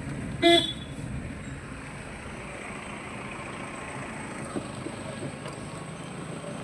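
A single short car horn toot about half a second in, over the steady low rumble of the car running, heard from inside the cabin.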